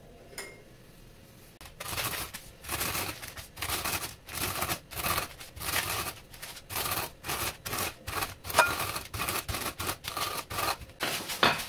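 Corn flakes in a zip-lock plastic bag being crushed under a wooden rolling pin: repeated crunching, rustling strokes, about two a second, starting about two seconds in.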